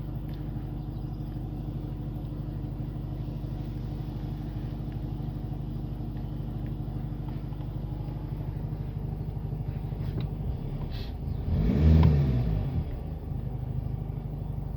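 VW Passat B8 engine idling steadily, with one brief rev that rises and falls a few seconds before the end.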